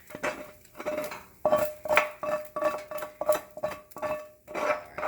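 Metal utensil scraping and knocking against a cast iron skillet of cooked ground beef, about two strokes a second, each leaving a short metallic ring, as the meat is pushed aside to drain off the fat.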